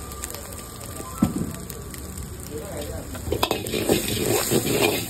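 Egg and chopped vegetables sizzling in oil in a wok, with a single sharp knock of the steel ladle on the pan just over a second in. From about three and a half seconds in the ladle stirs fast, scraping and clattering against the wok over a louder sizzle.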